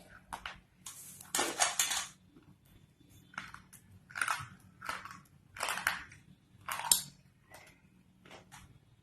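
Slate pencil being bitten and chewed with sharp crunches: a long burst of crunching about a second and a half in, then a crunch roughly every second, growing fainter near the end.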